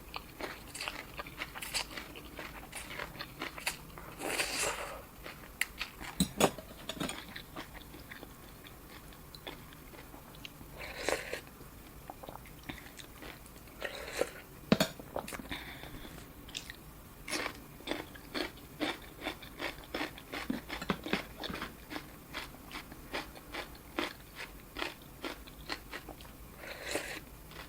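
Close-miked eating of Thai boat noodle soup: chewing with many short mouth smacks and clicks, and a few longer slurps.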